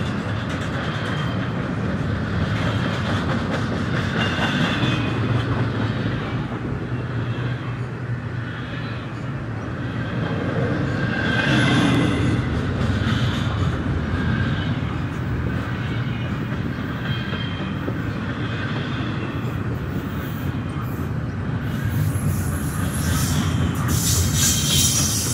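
Double-stack intermodal freight train's container cars rolling past: a steady noise of steel wheels running on the rails, with short high-pitched wheel squeals now and then, strongest near the end.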